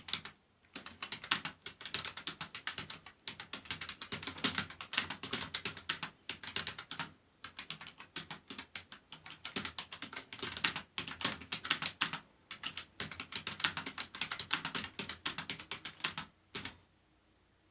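Fast typing on a computer keyboard: a rapid run of key clicks with a few brief pauses, stopping about a second before the end.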